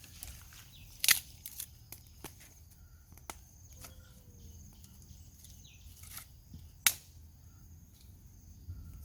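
Scattered sharp clicks, two much louder than the rest, about a second in and about seven seconds in, over a low steady rumble.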